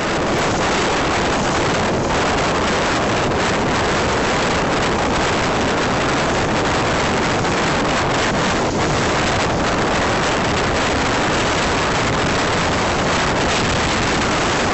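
Steady wind noise buffeting the microphone of a boat running at speed, mixed with the rush of water past the hull.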